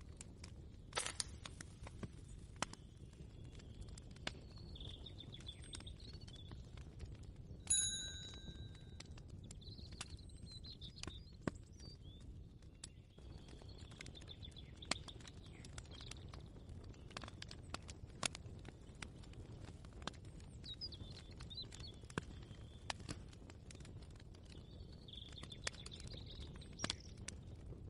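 Kitchen ambience: scattered light clicks and clinks over a low steady rumble, with faint bird chirps now and then and one bright ringing ding, like a small bell, about eight seconds in.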